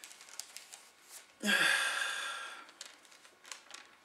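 A man's sigh: one long breathy exhale about a second and a half in, fading away over about a second. Faint small clicks come before and after it.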